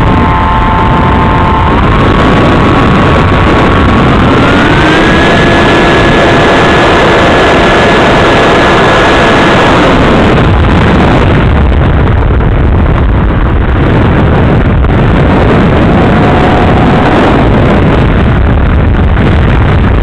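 Heavy wind rush on a model glider's onboard microphone, with a thin motor whine over it. The whine steps up in pitch twice in the first few seconds, holds, then fades out about halfway through, leaving only the steady rush of air.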